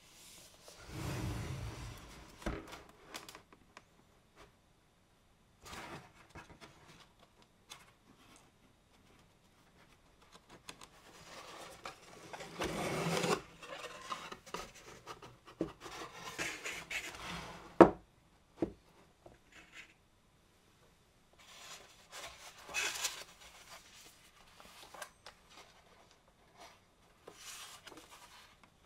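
Cardboard packaging handled by hand: a box scraping and sliding out of its cardboard sleeve, the lid opened, and paper leaflets rustling. It comes in scattered bursts of rubbing with quiet gaps between, and one sharp tap about two-thirds of the way through.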